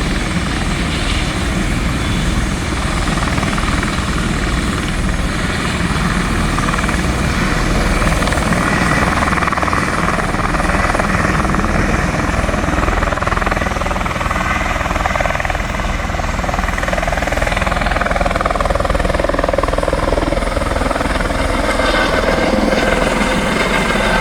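Helicopter running close by, with a steady rotor beat under a higher engine whine that drifts in pitch through the middle.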